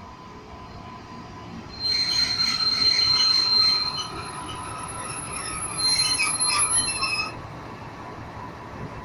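Diesel locomotive's wheels and brakes squealing in high ringing tones as it brakes to a stop. The squeal comes in two spells, about two seconds in and again about six seconds in, then stops, leaving a low running rumble.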